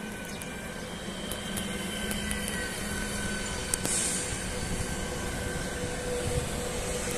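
Czech Railways InterPanter electric multiple unit rolling past. Its running noise is steady, with a low hum and a few sharp clicks, and it grows slowly louder.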